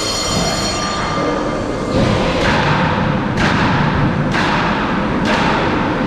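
Roller coaster train rolling along its steel track with a steady rumble. From about two seconds in there is a knock about once a second as the wheels pass track joints.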